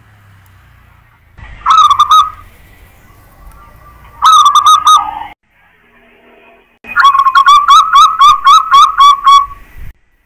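Zebra dove (perkutut) of a local strain, cooing its staccato song: two short phrases, then a longer run of about ten quick notes.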